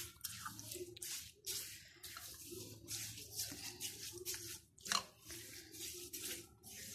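Blue silicone spatula stirring sugar into wet orange pulp in a glass bowl: soft, irregular strokes, about two to three a second.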